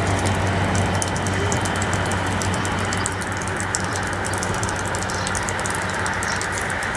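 A diesel train's engine running steadily out of view, a low, even hum that eases slightly in level, with crackling noise over it.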